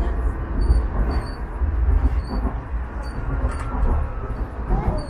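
Sheffield Supertram tram running along its track, heard from inside the passenger car: a steady low rumble of motors and wheels on rail.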